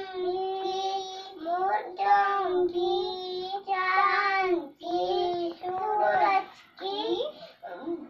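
Young children chanting a quiz answer in a sing-song voice, in held notes that break off about every second.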